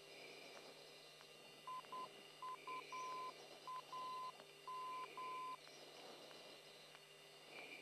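A radio navigation beacon's Morse code identifier heard over the fighter's radio: a single beep tone keyed into short and long pulses, dots and dashes, for about four seconds, over faint radio hiss and hum.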